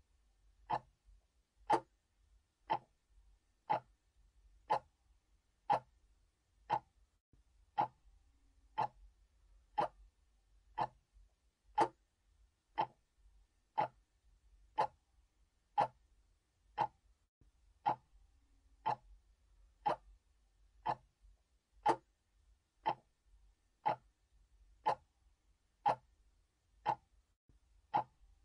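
Mechanical clock ticking steadily, about one crisp tick a second.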